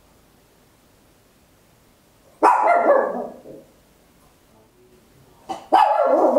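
Papillon barking very loud, two sharp barks about three seconds apart: one about two and a half seconds in, the other near the end.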